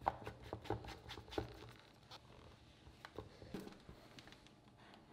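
Light plastic clicks and taps as the blade assembly is screwed onto a personal blender cup and the cup is seated on the blender's motor base.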